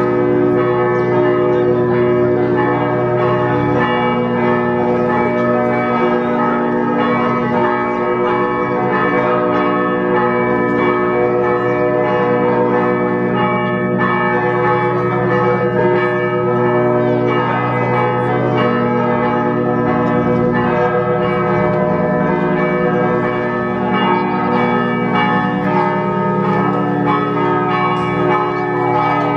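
Several church bells ringing together in a continuous peal, without a pause.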